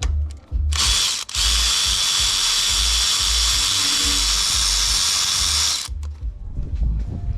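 A handheld power driver running steadily at high speed, spinning fasteners out while the engine's coil packs and cover are taken off. It runs for about five seconds, cuts out for a moment about a second in, and stops near the end. A low, steady music beat plays underneath.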